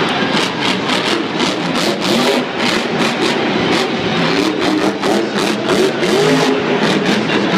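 Monster truck engines revving hard, supercharged big-block V8s whose pitch rises and falls again and again, more than one engine overlapping, over a dense wash of arena noise.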